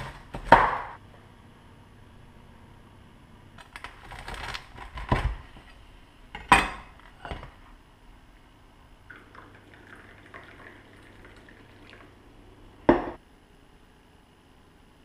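Chef's knife cutting through a crusty freshly baked bread roll and knocking against a wooden cutting board: a few sharp knocks spread out a couple of seconds apart, with lighter scraping and handling between them.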